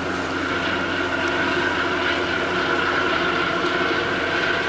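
Harbour tugboat's diesel engines running steadily, a low drone with a steady high whine over it.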